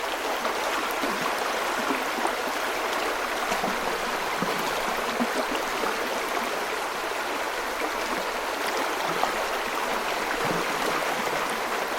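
Running water, a steady, even rush like a stream.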